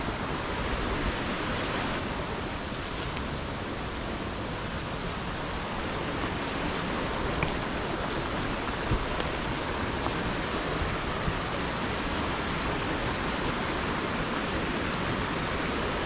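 Mountain stream flowing steadily, an even rushing of water, with a few faint clicks here and there.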